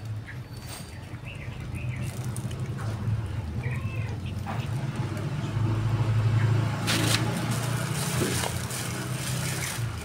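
A steady low engine hum that grows louder to a peak about six seconds in and then eases, like a motor vehicle going by. Several short high chirps in the first four seconds and a spell of sharp clicks in the last three seconds.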